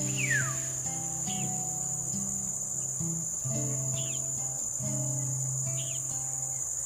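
Crickets or similar insects trilling steadily on one high pitch, with a few short bird chirps and a falling whistle about half a second in. Soft background music of held low notes starts right at the beginning and runs underneath.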